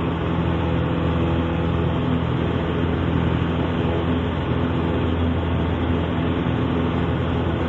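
Piper Super Cub's piston engine and propeller droning steadily in the cockpit, at an even pitch and level.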